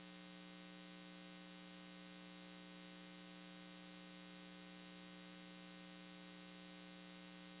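Faint, steady electrical hum: a low buzz with evenly spaced overtones that does not change, and no other sound.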